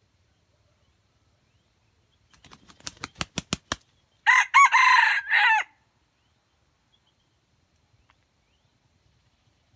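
Red junglefowl rooster beating its wings in a quick run of claps that speed up and grow louder, then giving one short crow of about a second and a half, broken into a few notes.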